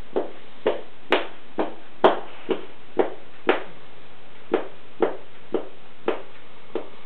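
A drowsy Golden Retriever's tail wagging against the surface she lies on: soft, regular thumps about twice a second, with a short pause a little past halfway.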